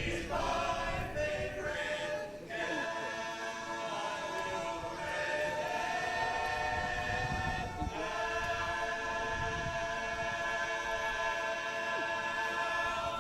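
An a cappella vocal chorus singing in harmony without accompaniment, holding long sustained chords. The last chord comes in about eight seconds in and is held until the singing stops at the very end.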